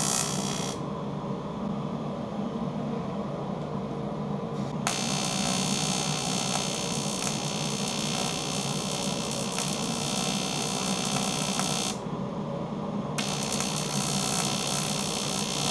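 AC TIG welding arc buzzing as it fuses a 0.2 mm aluminium drink can at about 15 A. The arc breaks off about a second in, strikes again near five seconds, drops out briefly around twelve seconds and restarts a second later, over a steady low hum.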